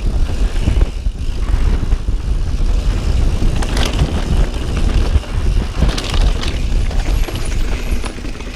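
Santa Cruz Bronson C mountain bike riding fast down rocky dirt singletrack: heavy wind rumble on the camera microphone over tyre roar, with brief rattles of the bike over rough ground about four and six seconds in.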